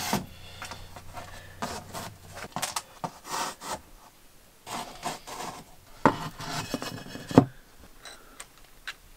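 Ceramic wall tiles being slid and set down on a plywood board, with irregular scraping and clicks as tile spacers are pushed in between them; the sharpest click comes about seven and a half seconds in.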